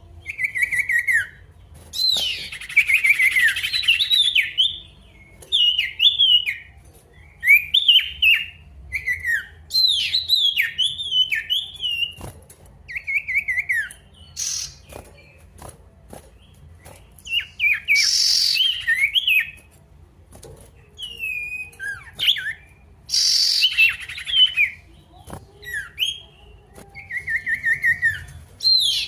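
A male sirtu, an Indonesian cagebird, singing hard: short phrases of sliding whistled notes repeated every second or two, broken by a few louder bursts of rough chatter.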